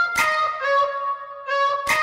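Instrumental background music: a melody of held notes stepping in pitch, with a sharp percussive hit just after the start and another near the end.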